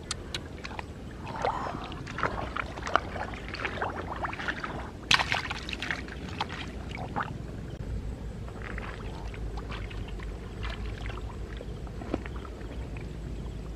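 Hands and feet splashing and sloshing in shallow muddy water, with irregular wet splashes and squelches, the loudest about five seconds in, over a steady low rumble.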